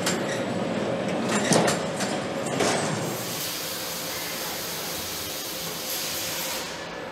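Factory machinery running, with metallic clatter and knocks for the first few seconds. Then a steady hiss takes over and stops abruptly shortly before the end.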